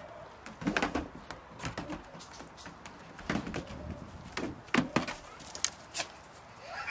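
Goat kids' hooves knocking and clattering on the wooden roof and plank of a small playhouse as they jump and scramble about: irregular sharp knocks, the loudest about a second in and just before five seconds.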